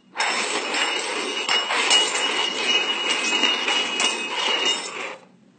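Three stainless steel cups being slid and shuffled over a hard floor: continuous scraping with metallic ringing and clinks, stopping abruptly about five seconds in.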